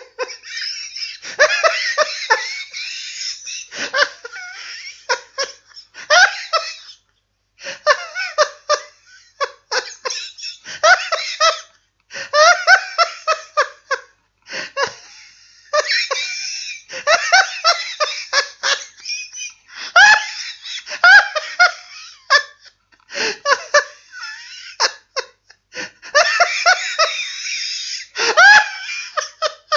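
Hearty human laughter, coming in fits of rapid pulses broken by short pauses for breath.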